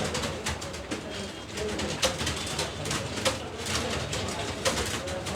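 Many computer keyboards being typed on at once: a dense, uneven clatter of key clicks.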